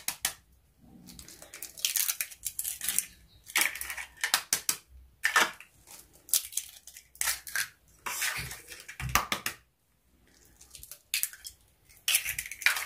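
Eggs cracked by hand into a glass bowl, three one after another: sharp cracks of the shells and crunching as they are pulled apart, with quiet gaps between.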